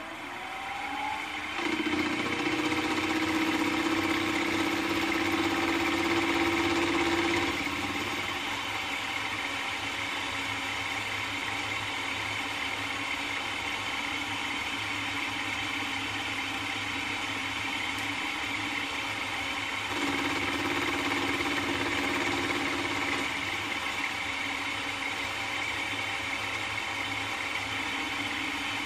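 Milling machine running: the spindle motor winds up in pitch over the first second or so, then runs steadily with a high whine. A louder hum joins from about two to seven seconds in and again from about twenty to twenty-three seconds.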